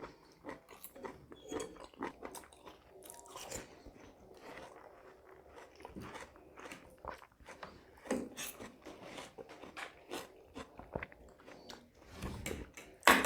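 Close-miked chewing and biting of food: wet mouth clicks and soft crunches in an irregular run, louder near the end.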